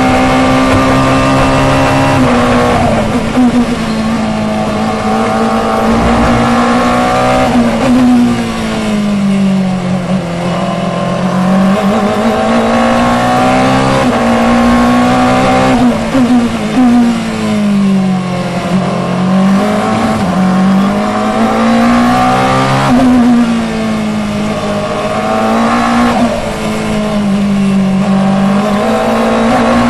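Onboard sound of a 2012 FIA Formula 2 car's 1.8-litre turbocharged four-cylinder engine at racing speed. The engine note climbs through upshifts on the straights and drops several times through downshifts under braking for corners, then climbs again.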